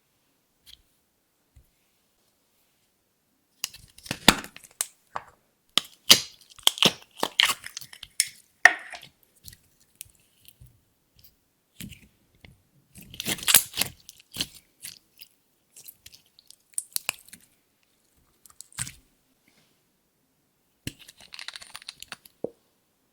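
Clear slime being squished and kneaded by hand, giving bursts of sticky crackling and popping clicks with quiet pauses between them.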